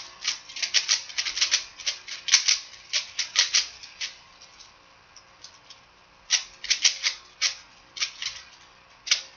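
Plastic layers of a 3x3 Rubik's cube clicking and clacking as they are twisted quickly to scramble it, in fast irregular runs of clicks. The turning slows to a few scattered clicks midway, then picks up again in a brief burst.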